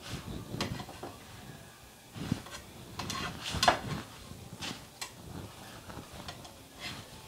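Metal tongs clicking and scraping against a nonstick frying pan as a paratha is lifted and turned: scattered light clicks and knocks, the sharpest about three and a half seconds in.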